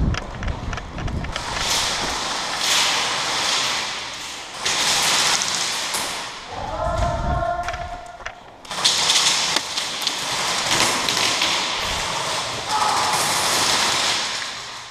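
A player's footsteps thudding on a concrete floor while running, with gear and clothing rustling loudly against a helmet-mounted camera in long stretches of hiss. A short shout-like call comes about halfway through.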